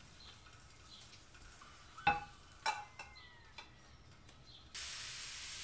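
Two sharp clinks of a frying pan and spatula against a plate as a cooked crepe is slid off, followed by a brief falling scrape. Near the end a steady hiss of crepe batter sizzling in the hot pan starts abruptly.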